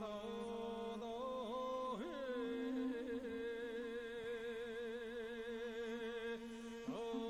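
Slow singing with long held notes that waver and slide between pitches, over a steady lower held tone.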